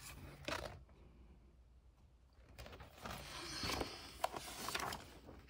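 Paper rustling as the pages of a large picture book are turned and handled, with a short rustle near the start and a longer one in the second half.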